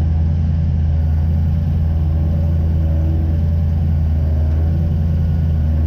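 Jetsprint boat's engine idling with a steady low rumble as the boat creeps along at low speed.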